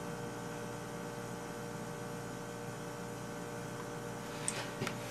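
Steady electrical hum made of several even tones, with a few light clicks near the end.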